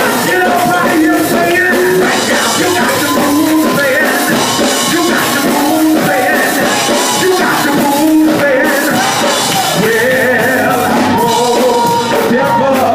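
Loud live gospel music: voices singing over a band with a steady beat.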